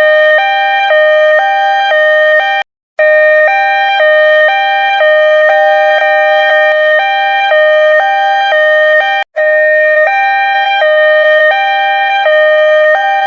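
Two-tone hi-lo ambulance siren, switching quickly back and forth between a high and a low note. It cuts out briefly twice, about three seconds in and again about nine seconds in.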